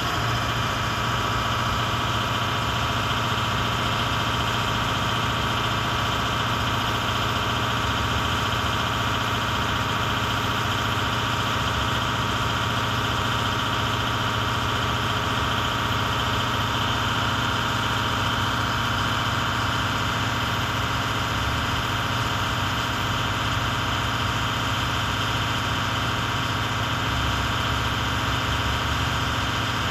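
A 2010 IC CE200 school bus's MaxxForce 7 V8 turbo-diesel engine idling steadily at high idle, with no revving.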